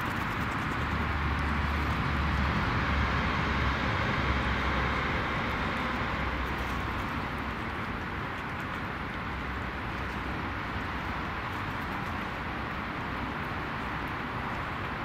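Steady outdoor background hiss with a low rumble that swells for a few seconds near the start and then settles. There are no bird calls.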